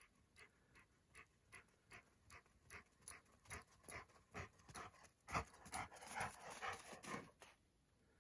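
A yellow Labrador-type dog panting in regular puffs, two or three a second, getting louder as it comes close; the panting is loudest and most crowded about five to seven seconds in, then stops shortly before the end.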